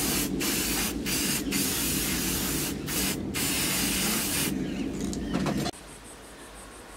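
Aerosol spray can of clear gloss lacquer spraying in a steady hiss, broken by a few short pauses in the spray, then stopping abruptly near the end.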